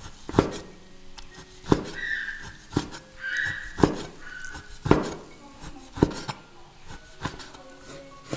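A Chinese cleaver chopping pig ears into small pieces on a wooden cutting board, about eight sharp chops roughly one a second, each knocking through the meat onto the board.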